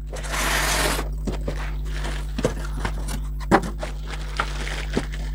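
A brief burst of rustling, scraping packaging as a heater wrapped in a plastic bag is pulled out of its cardboard box and polystyrene packing, followed by a few light knocks and taps as it is handled.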